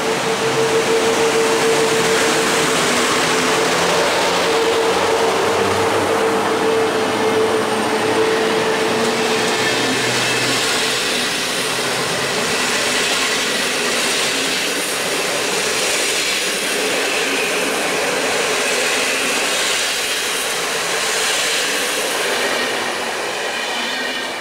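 An EP09 electric locomotive and its passenger carriages rolling past along a station platform. A steady hum from the locomotive lasts for about the first ten seconds. Then comes the clatter of the carriages' wheels over the rails, with thin high wheel squeals.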